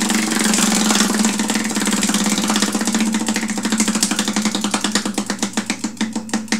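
Spinning prize wheel, its pointer clicking rapidly against the pegs around the rim. The clicks spread out in the second half as the wheel slows toward a stop.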